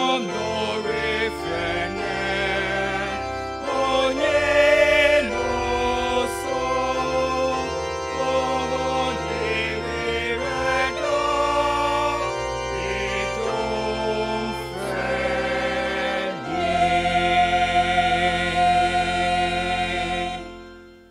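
Mixed church choir singing a hymn in parts with electronic keyboard accompaniment. Near the end the choir holds a long final chord that fades away.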